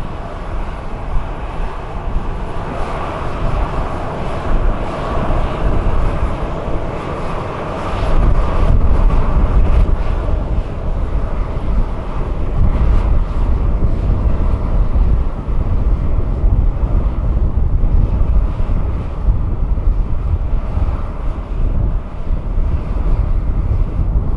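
Jet noise from a Boeing 737-800's CFM56-7B turbofan engines running, a steady noisy roar. A heavier low rumble comes in about eight seconds in and stays.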